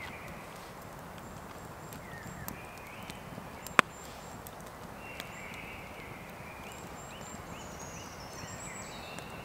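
Small wood fire burning in a dug Dakota fire pit, crackling with faint ticks and one sharp pop just under four seconds in, while forest birds call in runs of short chirps, most often in the second half.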